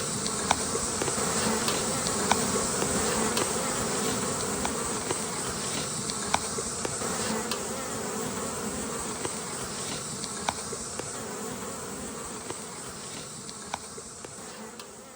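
A large swarm of honeybees buzzing as a steady, dense hum, with scattered sharp ticks, slowly fading in the later part.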